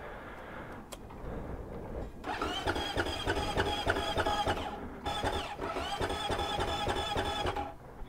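Electric starter cranking a supermoto's engine in two tries of about two and a half seconds each, a whine with a fast even pulse, the engine not catching because the kill switch is still on, which floods the engine.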